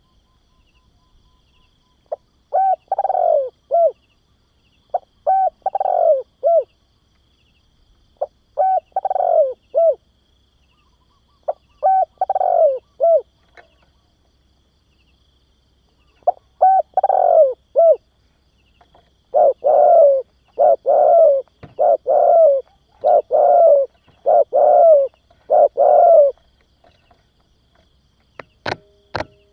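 Spotted dove cooing: phrases of three rolling coos every few seconds, then a quicker run of single coos repeated about once a second. A few sharp clicks come near the end.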